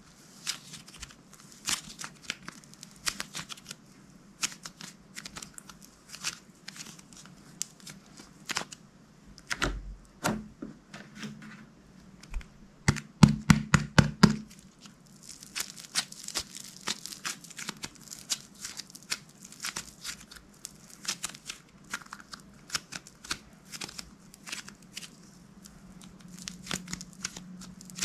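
Slime being squished and pulled by hand: a steady run of sticky clicks and crackling pops, with a quicker burst of louder pops about halfway through.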